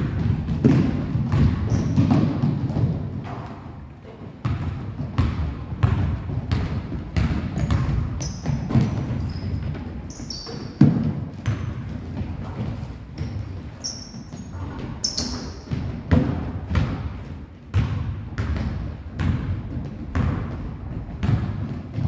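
Basketball bouncing on a hardwood gym floor, repeated sharp thuds a couple of times a second, with short high sneaker squeaks now and then, mostly in the middle.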